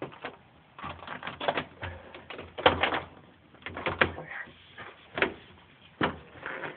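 Sheets of Damplifier Pro sound-deadening mat being handled and pressed by hand onto a Jeep's ribbed steel floor pan: irregular rustling and crinkling with a handful of sharper taps and knocks.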